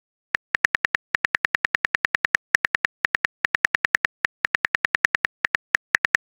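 Rapid smartphone keyboard clicks as a text message is typed, about six identical clicks a second with brief pauses between bursts.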